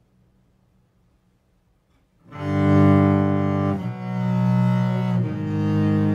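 Near silence for about two seconds, then a bowed double bass comes in with long held notes, rich in overtones, changing note twice. An extra track a fifth higher is layered over the bass.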